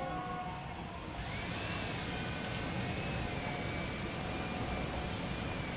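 Distant jet airliner's engines: a thin high whine that rises about a second in and then holds steady, over a low rumble and hiss.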